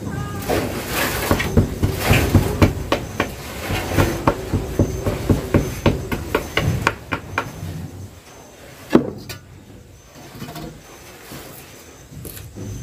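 Kindling being handled at a wood-fire hearth: a quick run of small wooden knocks and cracks, about two or three a second, then one single louder knock about two-thirds of the way through.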